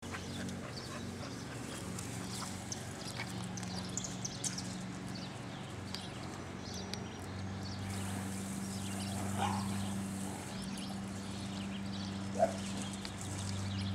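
A blue nose pit bull and a boxer playing together on grass: scuffling, light paw and tag noises and short snorts or grunts, with one brief louder dog sound near the end. A steady low hum runs underneath.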